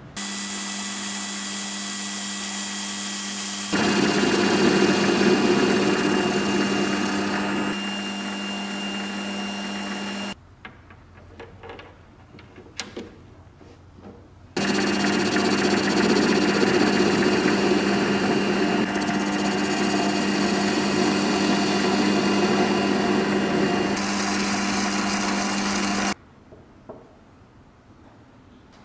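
Small electric power tool motor running steadily in two long runs, with a pause of a few seconds and a few light clicks between them. The first run grows louder and rougher a few seconds in.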